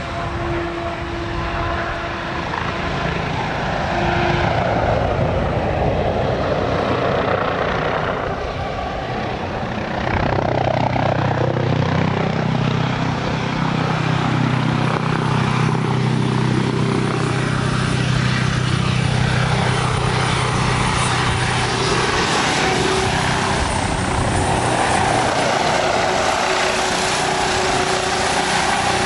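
Boeing-Sikorsky RAH-66 Comanche helicopter flying low past, its twin turbine engines and rotors running steadily. The pitch slides up and down over the first several seconds, and the sound grows louder, with a deeper hum, about ten seconds in.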